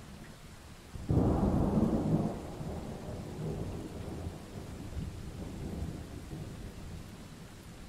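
A thunderclap cracks about a second in and rolls away as a long, fading rumble, over steady rain.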